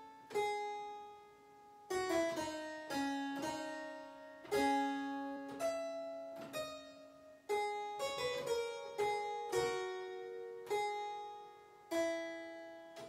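A historical keyboard instrument plays a fugue example in two voices: the D-minor subject and its answer in counterpoint, closing on a deceptive cadence. Each note starts sharply and dies away, and the final chord fades near the end.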